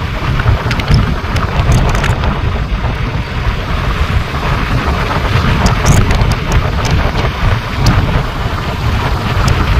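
Loud wind buffeting the microphone of a moving vehicle: a dense, fluttering rumble, with a few faint clicks.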